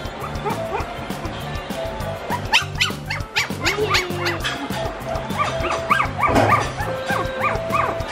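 One-month-old Shih Tzu puppies yipping and whining in short, high, rising-and-falling cries that come thicker in the second half, over background music with a steady beat. The puppies are hungry and cry for the milk bottle while they wait their turn to feed.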